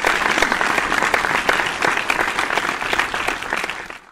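Audience applause, dense clapping that swells in and holds steady before cutting off sharply near the end: a recorded applause effect greeting the show's hosts.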